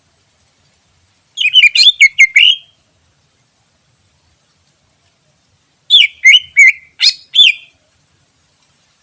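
Cucak ijo (green leafbird) singing two short, loud phrases, each a quick run of about five sweeping whistled notes. The first comes about a second in and the second about six seconds in.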